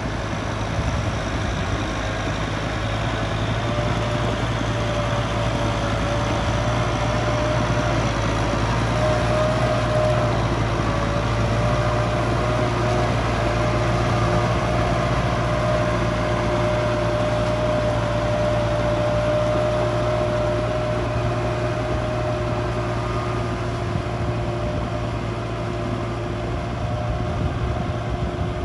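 Kubota tractor's diesel engine running steadily under load while its rear rotary tiller churns through a flooded rice paddy, with a steady whine above the engine hum. It grows a little louder through the middle and eases slightly near the end.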